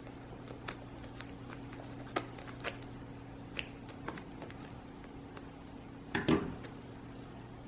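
Hands handling a potted plant and its packaging: scattered small clicks and taps, with a louder rustling knock about six seconds in, over a steady low hum.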